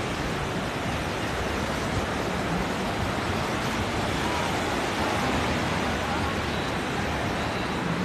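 Gentle surf breaking and washing up a sandy beach in a steady, even hiss.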